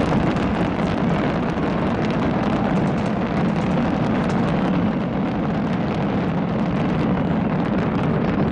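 Fireworks going off in a dense, continuous barrage: a steady crackling made of many small rapid pops over a low rumble, with no single standout bang.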